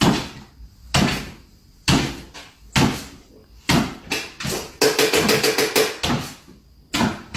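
A series of sharp knocks, about one a second, with a quick rattling run of knocks in the middle.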